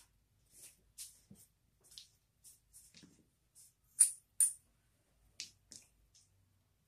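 Poker chips and dice being handled by hand: a scatter of small, light clicks, with two sharper clacks close together about four seconds in.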